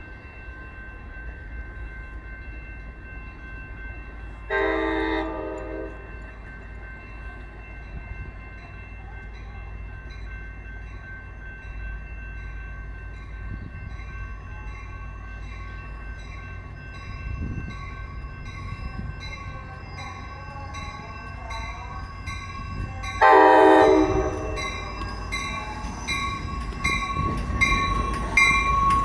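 Amtrak Capitol Corridor passenger train approaching and pulling into the station, sounding its horn twice: a blast of about a second about four seconds in and another near the end. The low rumble of the train grows louder as it comes alongside.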